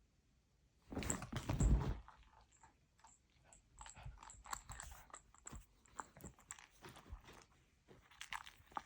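A dog chewing and crunching on something, in irregular short crunches, with a louder burst of rustling noise about a second in.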